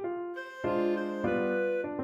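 Clarinet and piano playing a chamber piece in a quiet, lyrical passage, with piano chords struck about half a second in and again just over a second in.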